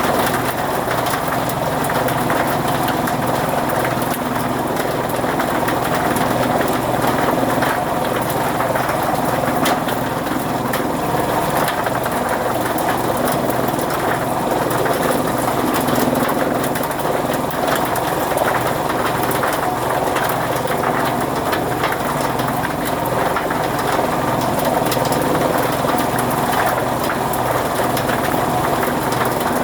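Chaff cutter (fodder-chopping machine) running steadily, a continuous mechanical drone that holds an even level throughout.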